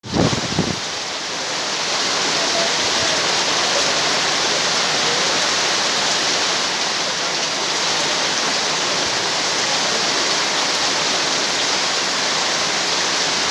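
Very heavy rain pouring down as a steady, dense hiss, with a few thumps in the first second.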